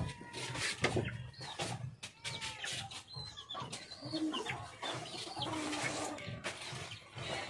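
Chickens clucking, many short calls one after another.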